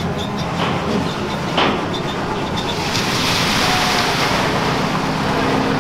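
Amphicar's four-cylinder engine running steadily as the amphibious car rolls down the launch ramp, with a couple of knocks, then a rush of splashing water from about three seconds in as it drives into the lake.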